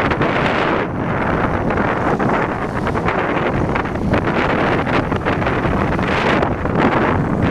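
Wind rushing over the microphone on a moving motorcycle, with the motorcycle's engine running beneath it.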